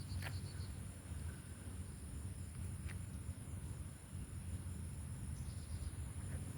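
Insects trilling steadily at a high pitch, over a low rumble and a few faint ticks.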